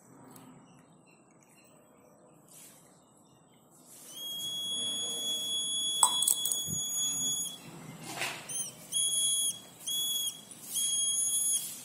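Electronic buzzer of a homemade water indicator sounding a steady high-pitched beep once the poured water reaches its two screw probes, showing that the water completes the circuit. It stops, then beeps in four short bursts as the probes are lifted in and out of the water.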